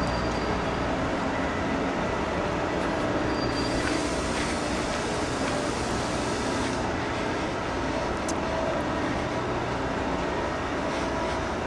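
Scheuchzer Grizzly 104 L rail-grinding train grinding the rails: a steady, dense grinding noise that grows brighter and more hissing for a few seconds in the middle, with a single sharp click near the end.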